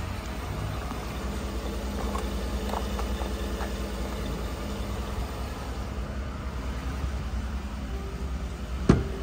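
2013 Ford F-150's 5.0L V8 idling steadily with a low, even rumble. A single sharp click comes near the end.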